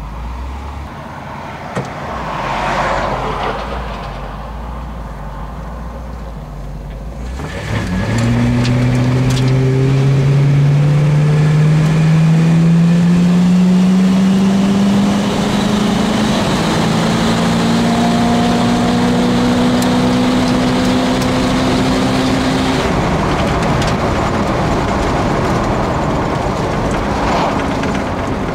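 A 1966 Chevy Biscayne's 396 big-block V8 heard from inside the cabin, rumbling low, then floored from about eight seconds in. The revs climb steadily, drop once about halfway and climb again, and the engine eases off near the end.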